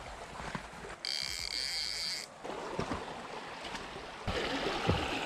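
Flowing creek water, with a high steady whine from about one to two seconds in and a few scattered light knocks.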